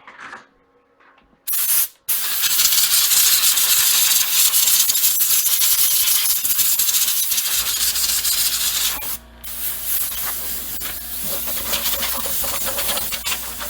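Air being blown at a CNC-carved wood piece to clear out dust: a short blast about a second and a half in, then a long steady hiss that breaks off briefly near nine seconds and starts again. A low hum joins about halfway through.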